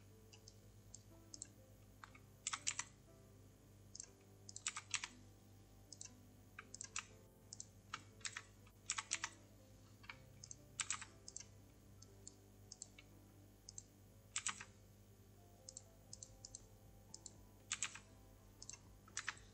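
Faint computer keyboard keystrokes: short, irregular clicks, single or in quick clusters of two or three, spaced about a second or two apart.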